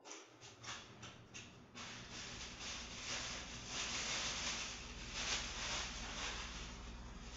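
Plastic wrapping being handled and crinkled at a kitchen counter: a run of separate crackles for about the first two seconds, then denser, uneven rustling.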